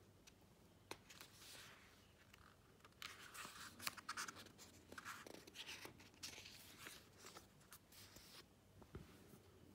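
Pages of a paperback book being turned and handled by hand: faint papery rustling and small ticks, louder in the middle stretch.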